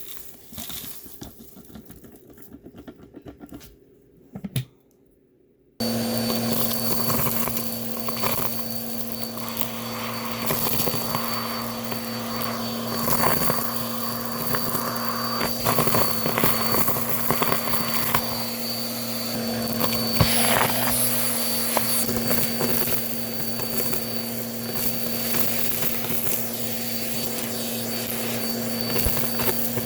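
Bissell vacuum cleaner motor running with a steady hum and a high whine. It comes in abruptly about six seconds in, after a few faint clicks.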